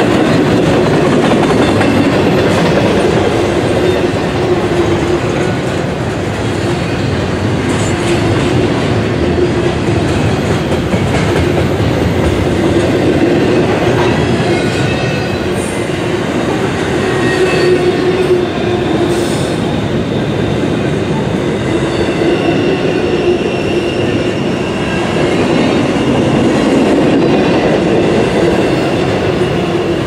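Double-stack intermodal freight cars rolling past at speed: a steady, loud rumble of steel wheels on rail. Thin high wheel squeals come and go in the second half.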